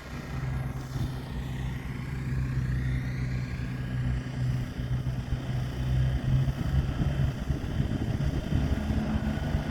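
A motor vehicle's engine running with a steady low drone, with faint tones gliding in pitch higher up about a second in.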